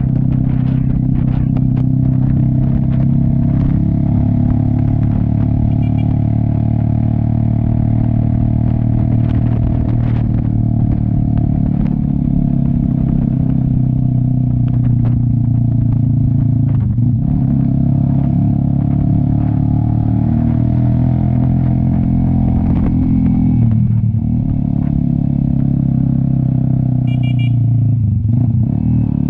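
Cafe 400 motorcycle with an SC Project aftermarket exhaust running under way, the engine note holding steady and dipping briefly in pitch three times, late in the stretch.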